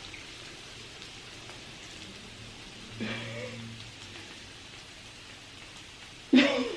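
Steady faint hiss of background noise. About three seconds in there is a short hummed voice sound, and near the end a brief loud vocal sound.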